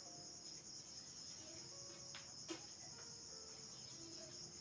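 Faint background with a steady high-pitched pulsing trill, and one soft tap about two and a half seconds in.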